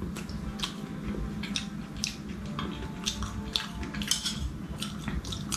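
A spoon clinking and scraping against a metal plate as food is scooped up, a string of short, sharp clicks at irregular intervals.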